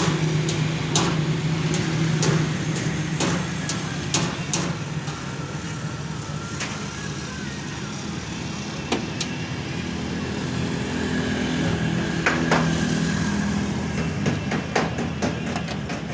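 A car running with a steady low hum, with scattered sharp clicks and knocks over it.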